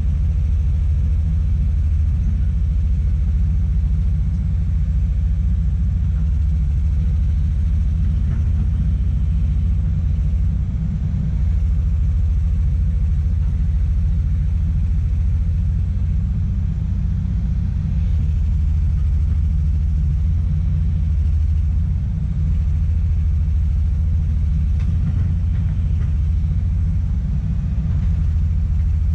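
Komatsu PC200 excavator's diesel engine running steadily, a deep, even rumble.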